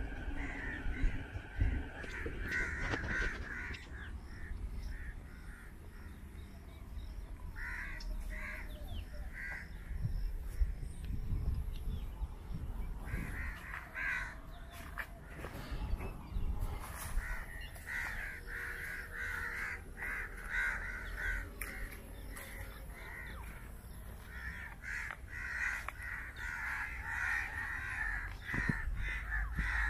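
A flock of crows cawing, many calls overlapping, in scattered bouts at first and then an almost unbroken chorus from about halfway through.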